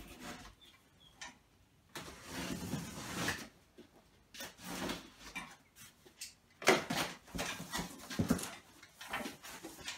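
A large cardboard shipping box being handled and unpacked: cardboard scraping and rustling as it is turned and its flaps are pulled open, with a few sharp knocks, the loudest about two-thirds of the way through.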